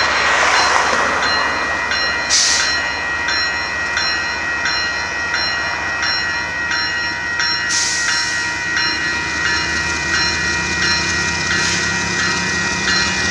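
Railroad grade-crossing warning bell ringing in a steady, even rhythm as the signals flash for an approaching Union Pacific freight train. Under it is the low rumble of the train's diesel locomotives, growing louder near the end, with two brief hisses about two and eight seconds in.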